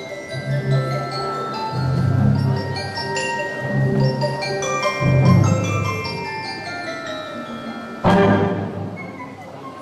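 High school wind band playing: ringing mallet-percussion notes over swelling low wind notes, with a loud percussion crash that rings on, about eight seconds in.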